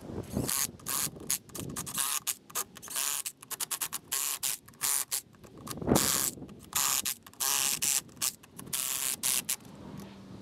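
Ratchet wrench being worked in quick, irregular strokes, a rapid run of clicking in short spurts.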